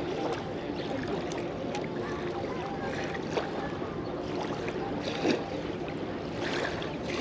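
Small river waves lapping steadily at a sandy shore, with light wind on the microphone and a few soft splashes.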